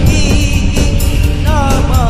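Background music: a Bugis song, a voice singing over a steady beat.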